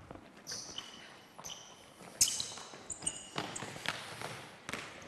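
Basketball bouncing on a hardwood gym floor: a handful of irregular sharp thuds, with short high sneaker squeaks in between as players run and cut.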